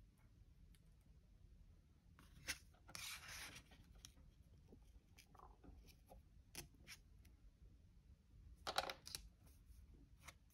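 Faint paper handling as a sticker is pressed and smoothed onto a planner page: soft rustling, a short scratchy rustle about three seconds in, and a few light taps and clicks, clustered near the end.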